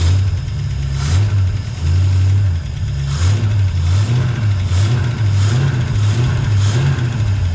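1965 Ford Mustang engine running and revved up and down in repeated short blips. The owner believes the engine has a rod knock.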